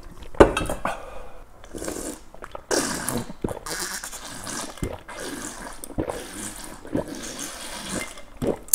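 A person drinking liquid from a stainless steel bowl, slurping and swallowing in a string of gulps with sharp clicks in between.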